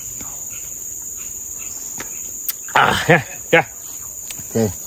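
Steady high-pitched insect drone, with a few short voice sounds about three seconds in and again near the end.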